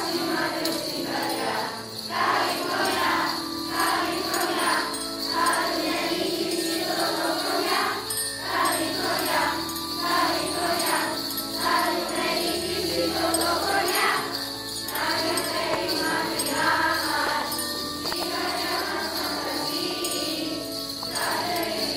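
Children's choir singing, with handheld jingle bells shaken along in a steady jingle.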